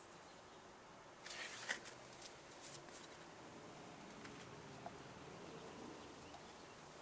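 Faint rustling and handling noise: a brief rustle ending in a sharp click about a second and a half in, then a few small ticks and one more click near the end.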